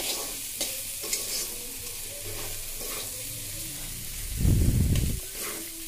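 A steel spatula scraping and stirring a dry, crumbly fish and spice mixture as it fries in an aluminium kadai, over a steady sizzle. A brief low rumble comes about four and a half seconds in and is the loudest sound.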